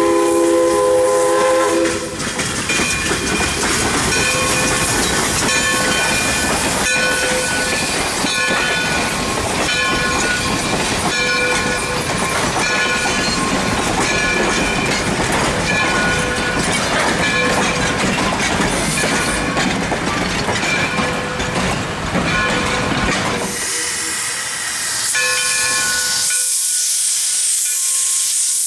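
A steam locomotive's whistle blows for about the first two seconds. Then the passenger coaches rumble past over the rails with a bell ringing repeatedly. After a cut near the end, steam hisses from the locomotive's open cylinder cocks.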